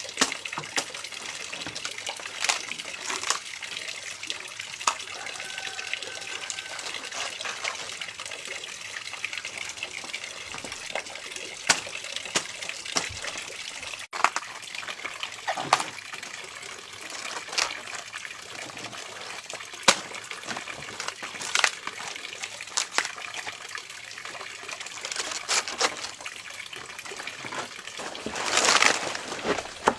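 Water running and splashing, with scattered knocks and clicks throughout and a louder splashy stretch near the end.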